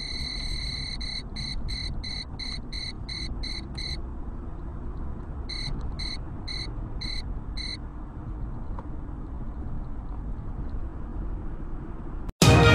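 Steady road and engine rumble heard from inside a moving car, with a high electronic beep over it: one long tone, then a run of short beeps about three a second, and a second run of short beeps a few seconds later. Music starts suddenly at the very end.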